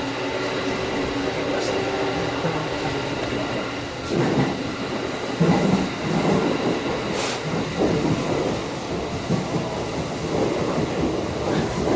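Running noise inside an electric commuter train: a steady motor whine over the rumble at first, then from about four seconds in a louder, uneven rumbling and knocking of the wheels on the track.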